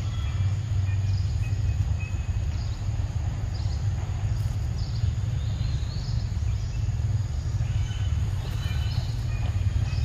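A steady low rumble throughout, with short high chirps of birds scattered through it.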